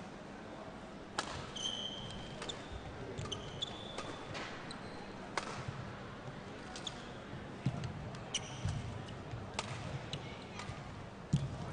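Badminton rally: rackets striking the shuttlecock about once a second, starting about a second in, with shoes squeaking and feet landing on the court mat between the shots.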